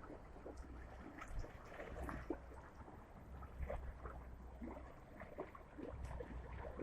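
Faint waterside night ambience: water lapping and trickling with scattered small splashes and ticks, over a low rumble that comes and goes.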